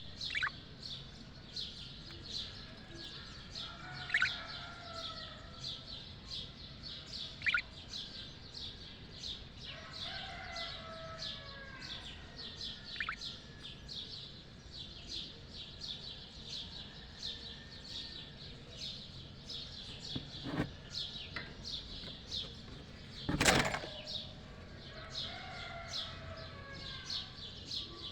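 A group of budgerigars chirping and warbling continuously, with rapid, high, repeated chirps over chattering warbles. There is a brief loud rustling burst about 23 seconds in.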